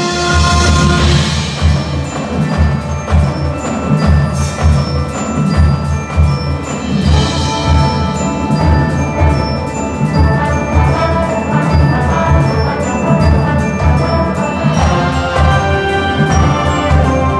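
A high school marching band plays its show music: flutes, trumpets, trombones, sousaphones and saxophones hold chords over heavy, irregular low drum hits, with ringing mallet percussion on top.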